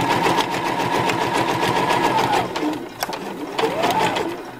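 Domestic sewing machine stitching a seam on a long basting stitch, running fast, then slowing with a falling whine and stopping about two and a half seconds in. It starts again briefly near the end, the whine rising and falling.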